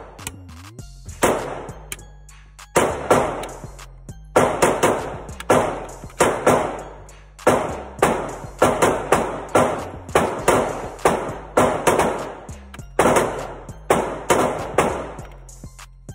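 Gunshots fired in quick strings of two or three a second, with short pauses between strings, each shot sharp and echoing in an indoor range booth.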